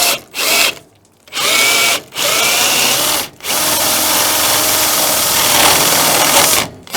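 Power drill boring the latch hole into the door edge with a spade bit. It runs in several short bursts and then one longer steady run of about three seconds.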